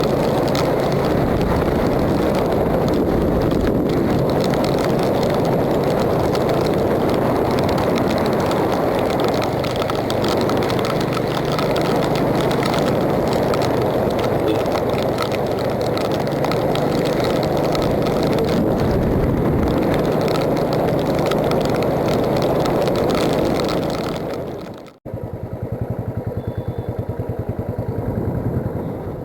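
Royal Enfield Classic 350's single-cylinder engine running under way in heavy rain, with dense wind and rain noise on the microphone. About 25 seconds in it cuts off suddenly to a quieter, evenly pulsing engine.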